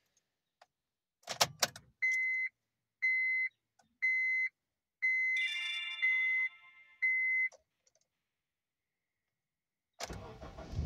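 Honda car's dashboard chime beeping six times, about once a second, with a short jangle of keys as the ignition is switched on. Near the end the starter cranks the engine for a cold start after it has sat about a week in freezing weather.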